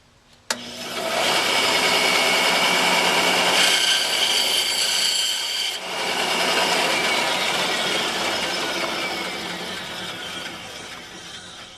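A power saw cutting off the excess wooden hammer handle and wood wedge that stick out of the hammer head's eye. The saw starts abruptly about half a second in, runs steadily with a brief dip near the middle, and trails off near the end.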